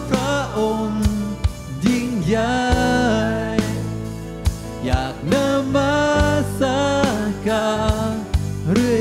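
Live worship music: a singer holding long notes over a band, in a Thai-language worship song.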